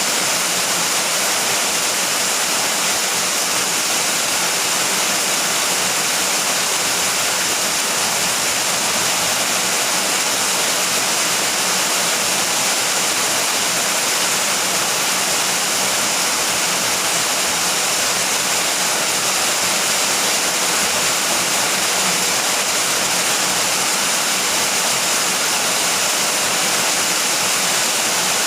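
Steady heavy rain: a dense, even hiss that does not change, with no thunder.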